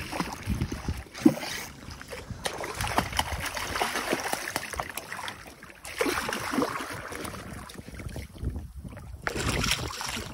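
Hooked redfish thrashing and splashing at the surface beside the boat as it is brought in and grabbed by hand, with irregular sharp splashes.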